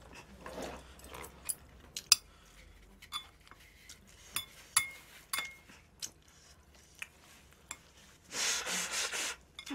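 Chopsticks clicking and tapping against a takeout chicken box and the food in it, in scattered short clicks. About eight seconds in comes a noisy burst lasting about a second, as a paper tissue is pressed to the face.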